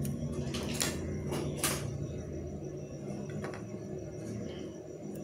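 Low hum of an electric sewing machine's motor, easing off over the first two seconds with the seam finished. A few sharp clicks and the rustle of cloth as the fabric is handled at the needle plate.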